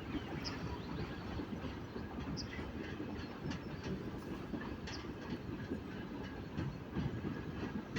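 A work train hauled by a TEP70 diesel locomotive rolling along the track, its wheels clattering irregularly over the rails.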